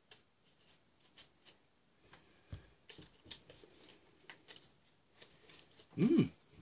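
A cardboard knife box being opened with a knife blade: scattered light clicks, ticks and scrapes of the blade and packaging, with one louder short squeak-like sound near the end.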